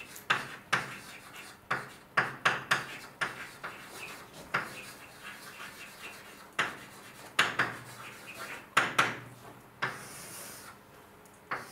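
Chalk writing on a blackboard: an irregular run of sharp taps and short scratches, with a longer scrape near the end.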